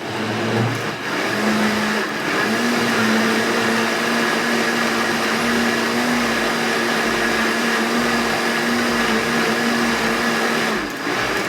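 Countertop blender motor running steadily, blending a cornmeal cake batter, then switched off near the end.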